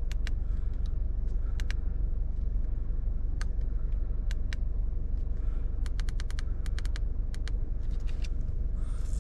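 Volkswagen MK7 GTI's turbocharged four-cylinder engine idling with a steady low rumble. Over it come scattered short clicks, with a quick run of them about six seconds in.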